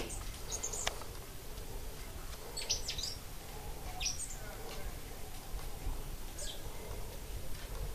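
Small birds calling: a handful of short, high chirps, each sliding down in pitch, scattered a few at a time over several seconds above a faint low rumble.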